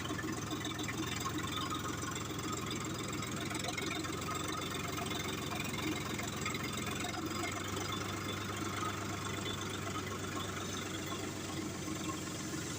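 Heavy diesel engine running steadily at an even speed, with a fast, regular low pulse.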